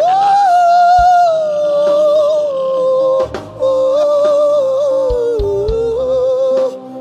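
A man's voice singing a long, wordless held line into a microphone. It leaps up to a high note at the start and drifts slowly down, with a short break about three seconds in, over a steady sustained backing chord.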